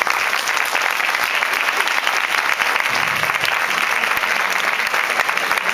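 Audience applauding, a dense and steady clapping of many hands.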